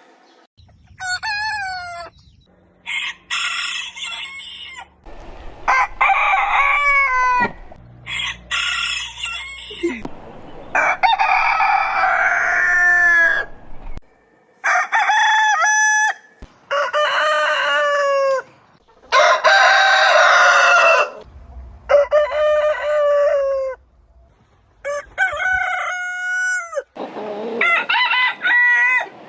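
Roosters crowing, one crow after another in a rapid string of separately cut clips, about a dozen in all. Several of the crows are long and drawn out.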